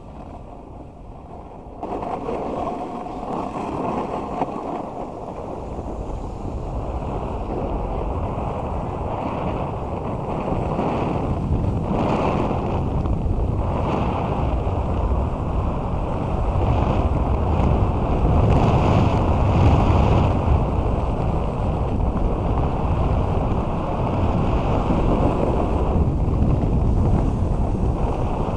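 Wind rushing over an action camera's microphone during a snowboard run down a packed-snow slope, mixed with the board sliding and scraping over the snow. It picks up suddenly about two seconds in and grows louder as the speed builds.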